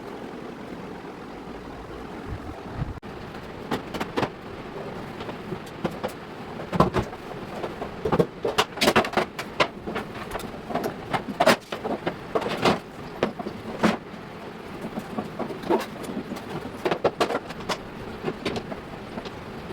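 Irregular light knocks and clicks of objects being handled and set down, coming in quick clusters through the middle and again near the end, over a steady low hum.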